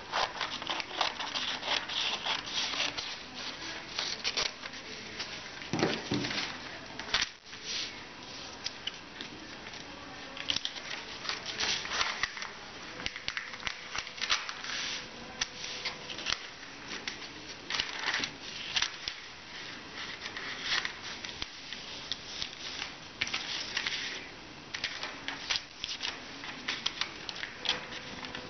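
Scissors snipping through a sheet of paper at first, then the paper rustling and crackling as it is folded and its creases are pressed down by hand.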